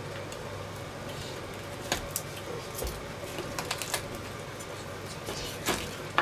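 Kitchen knife cutting through a grilled duck's crisp skin and wing joint on a wooden cutting board, with scattered light clicks and taps of the blade and meat.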